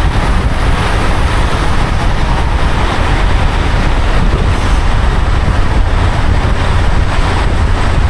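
Loud, steady wind noise buffeting the microphone, with a deep low rumble under a rushing hiss.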